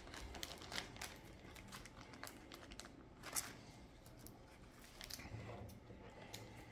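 Plastic binder pocket pages crinkling and rustling faintly as trading cards are handled and slid into the sleeves, with scattered small clicks.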